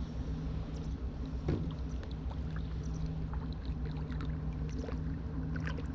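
A hooked herabuna (Japanese crucian carp) splashing and thrashing at the pond surface as it is played on a float rod: faint, scattered small splashes, with a short thump about one and a half seconds in, over a steady low hum.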